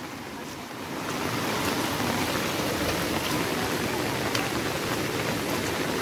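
Steady rush of a river flowing fast over rocky rapids at the head of a waterfall.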